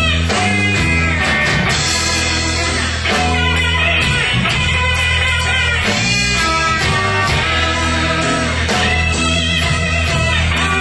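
A live blues band playing, with electric guitar to the fore over bass and drums.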